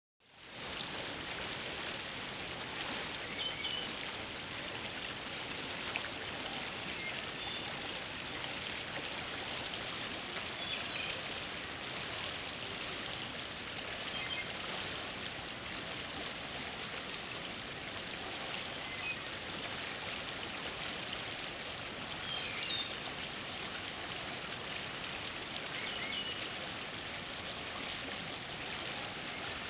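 Steady rushing of a flowing river, with a few faint, brief high chirps now and then.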